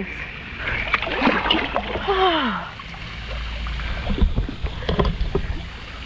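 Water sloshing and splashing in a rock pool as a person eases in, with a short falling "ooh" from her about two seconds in. A low rumble on the microphone and several small knocks follow about four to five seconds in.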